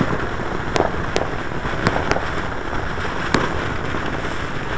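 Ground fountain firework spraying sparks with a steady hiss, broken by five sharp pops in the first three and a half seconds.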